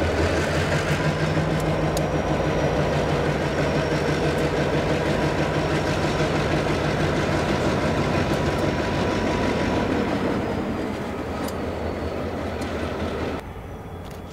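EMD diesel road-switcher locomotive running as it moves slowly past close by, a steady engine sound with a few light clicks, fading after about ten seconds. Near the end the sound drops suddenly to a quieter, more distant rail-yard background.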